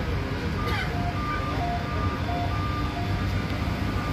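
Subway train running with a steady low rumble. Over it, a high tone falls in pitch, then switches back and forth between two pitches several times.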